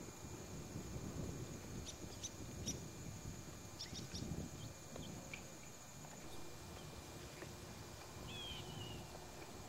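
Faint outdoor ambience: a steady high insect trill that stops about two-thirds of the way through, a few short high bird chirps and one curved chirp near the end, over a low rumble.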